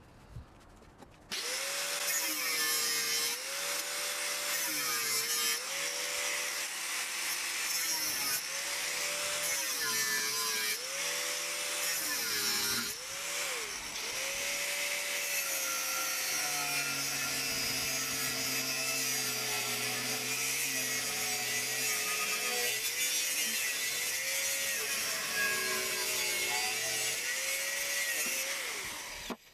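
Angle grinder with a cut-off disc cutting relief cuts into a steel knife blank: a grinding hiss over the motor's whine, which drops in pitch each time the disc bites and picks up again between cuts. It starts about a second in and stops just before the end.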